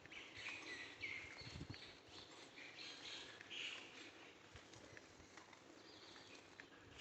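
Faint birds chirping in short scattered calls, with a few soft low thumps.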